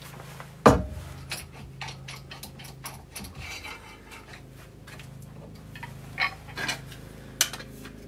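Scattered metallic clicks and knocks as a bowl gouge is handled and set into a Tormek sharpening jig, with one louder knock about a second in and a few more near the end. A steady low hum sits underneath.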